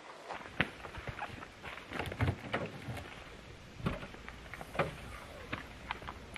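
Wheels of a hard-shell suitcase being pulled over rough dirt ground, rattling with a steady low rumble and many irregular clicks and knocks.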